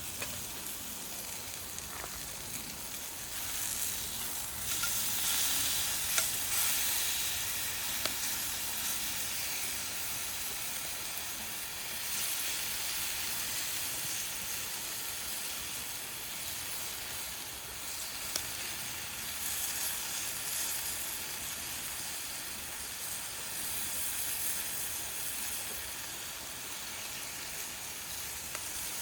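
Fried rice sizzling hard in a frying pan over a high-heat wood-burning stove, a steady dense hiss with a few light clicks.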